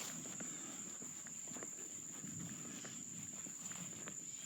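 Steady high-pitched drone of insects such as crickets, with soft footsteps and rustling underneath and a few small ticks.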